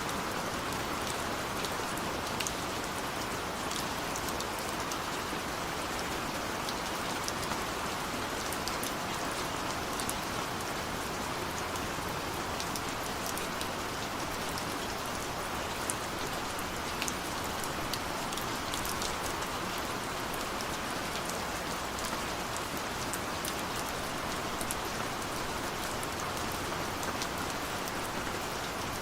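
Steady rain falling on a window, an even hiss with scattered sharp drop taps.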